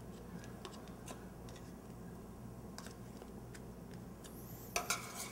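Faint scattered ticks of a small knife cutting through a wedge of brie, over a low steady hum. Near the end, two sharp metallic clinks ring out, a utensil striking a stainless steel pot.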